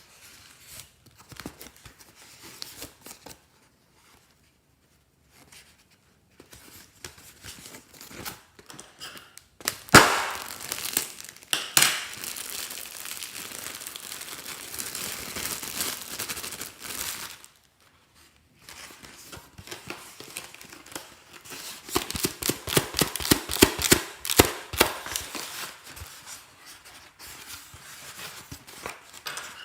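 Glossy slime being squeezed and worked by hand, crackling and popping. It starts with faint handling sounds. About ten seconds in a sharp snap leads into several seconds of steady crackling, and later comes a long run of quick pops and clicks.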